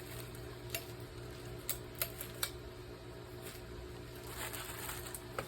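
A few light, scattered clicks and taps of small parts and packaging being handled, over a faint steady low hum.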